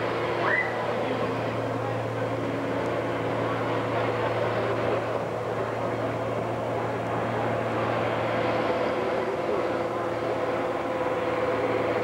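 A diesel farm tractor engine, the red International Harvester on the pulling track, running steadily with a low drone. The drone eases off about eight and a half seconds in.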